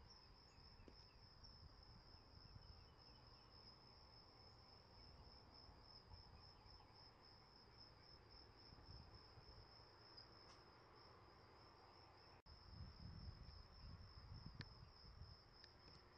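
Faint, steady high-pitched insect trill with a rapid, even pulse that never breaks. A low rumble grows louder about three-quarters of the way through, with a few soft ticks near the end.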